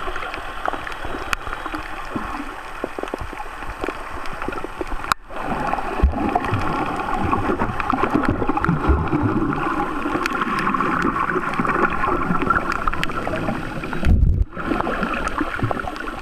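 Underwater water noise picked up by a submerged camera while snorkelling: a steady muffled rush with gurgling and scattered crackles, and a low thump about fourteen seconds in.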